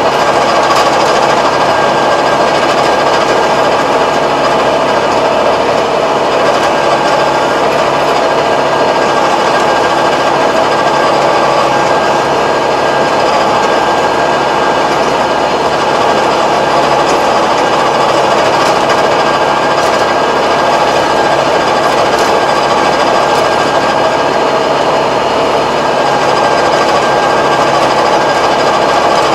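Tractor engine running with a PTO-driven Kobashi rotary tiller working the soil: a steady, loud mechanical clatter and hum that doesn't change.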